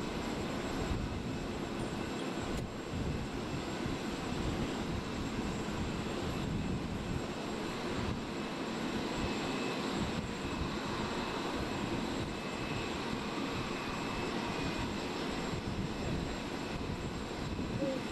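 Steady drone of aircraft engines running, a continuous noisy rumble with no breaks.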